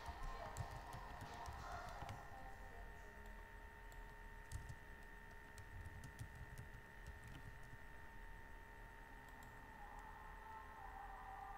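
Faint computer keyboard typing and mouse clicks, a scatter of light separate clicks, over a faint steady electrical whine.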